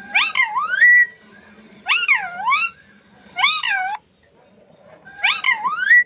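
Rose-ringed parakeet giving four gliding calls, each sweeping up and then down in pitch, with short pauses between them.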